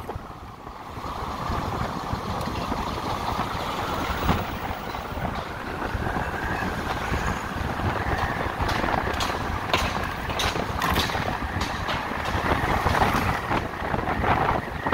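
Riding an electric motorcycle in city traffic: steady wind and road noise with a faint motor whine that rises over the first several seconds as it picks up speed. Scattered clicks and knocks come in the second half.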